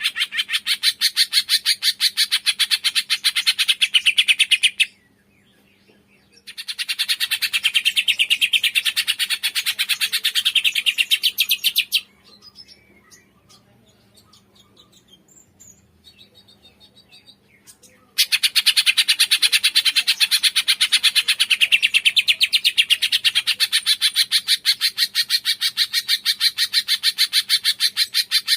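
Cungkok songbird calling in long bouts of rapid, evenly repeated high notes. It breaks off briefly about five seconds in, then pauses again from about twelve to eighteen seconds in, when only faint scattered chirps are heard, before the rapid calling resumes.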